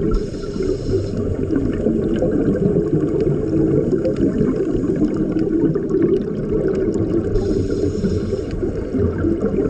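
Underwater sound of scuba breathing through a regulator: a steady low bubbling rumble of exhaled air, with a short hiss of inhaling near the start and again about seven and a half seconds in.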